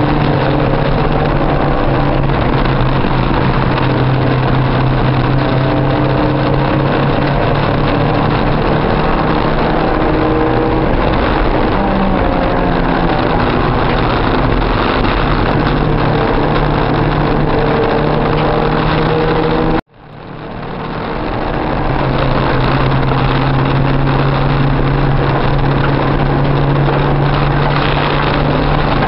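Spec Porsche 944 race car's 2.5-litre four-cylinder engine heard from inside the cabin while lapping the track: a loud, steady engine drone whose pitch wanders slightly. About two-thirds of the way through, the sound cuts out abruptly, then fades back in over a couple of seconds.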